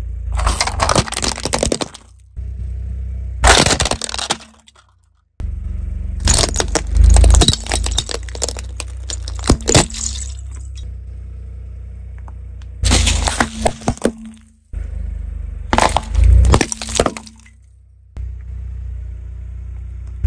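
Car tyre rolling over and crushing hard plastic toys one after another: about five separate bursts of cracking and breaking plastic, the longest lasting several seconds midway. A low steady rumble from the car runs under them.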